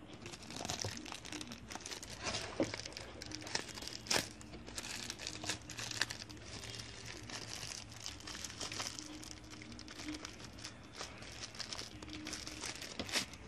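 Wrapping around a phone charger being crinkled and pulled off by hand: continuous rustling and crackling with many small sharp crackles.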